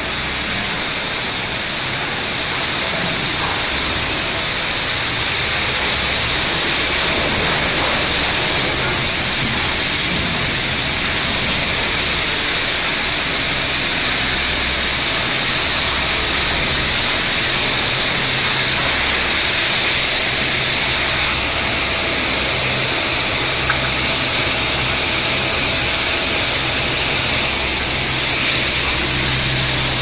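Steady din of sawmill line machinery running: a continuous high hiss over a low hum, with no breaks.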